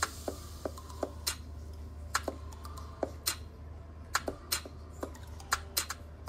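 Close-miked mouth eating sounds: wet smacking and chewing clicks from a mouthful of instant noodles, sharp and irregular at about two a second, over a steady low hum.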